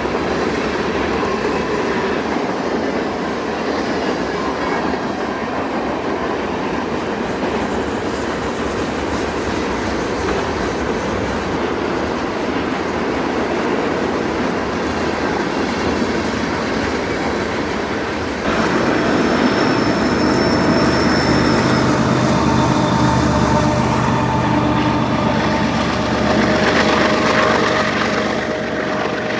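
A train rolling past with steady wheel and rail noise and clickety-clack over the joints. About two-thirds of the way through, the sound changes suddenly to a louder engine drone with steady tones, like a diesel locomotive working nearby.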